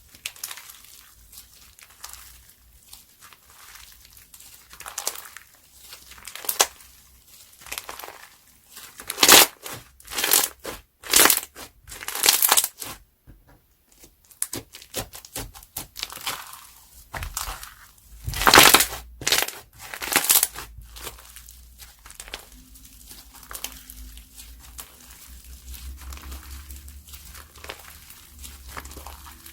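A crunchy slime being squeezed, stretched and pressed by hand, crackling and popping throughout, with louder crunching bursts around the middle.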